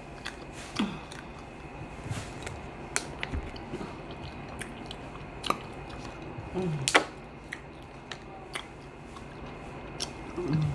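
Close-up chewing and biting on a cooked chicken bone: irregular crisp cracks and crunches, the sharpest about seven seconds in.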